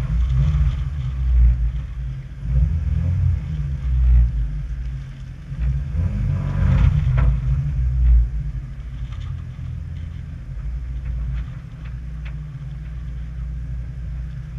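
Off-road vehicle engine running as it crawls along a rutted muddy track, heard from a camera on its bonnet: a heavy low rumble that surges unevenly for the first several seconds, then settles steadier and a little quieter.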